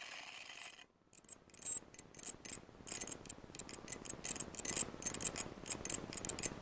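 Footsteps crunching through dry brush and loose shale stones, a string of irregular crisp ticks that grows slowly louder as the walker comes closer.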